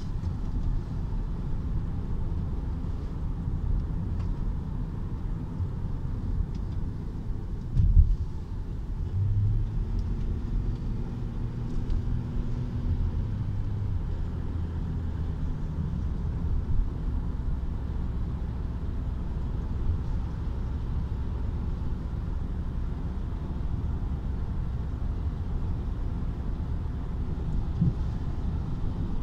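Steady low rumble of a car's engine and tyres on the road, heard from inside the cabin while driving. One sharp thump about eight seconds in.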